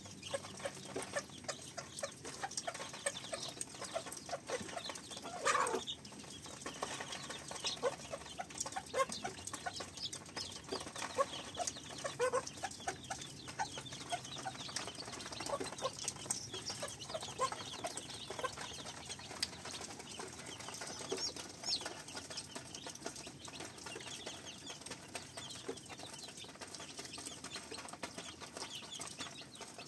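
Poultry clucking with short repeated calls, one louder falling call about five seconds in, among many small clicks and taps.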